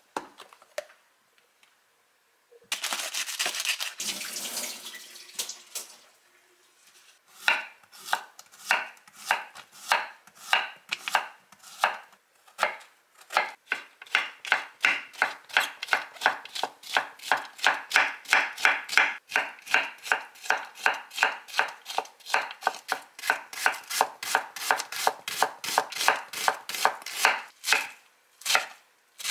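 A chef's knife slicing a Korean zucchini on a wooden cutting board, with steady strokes about two to three a second that quicken a little as she goes. A short rustle comes a few seconds in, before the slicing starts.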